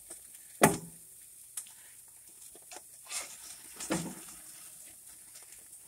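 Metal spatula knocking and scraping on gas-grill grates as hamburger patties are flipped: one sharp clank about half a second in, then a few softer knocks and scrapes. Faint sizzling of the patties on the hot grill underneath.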